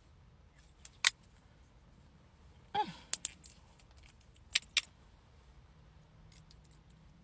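Sharp plastic clicks and taps as makeup is handled: a lip liner pencil is put down and a lip gloss tube is twisted open and its wand pulled out. There are about six clicks, the loudest about a second in, plus a short squeak falling in pitch a little before three seconds.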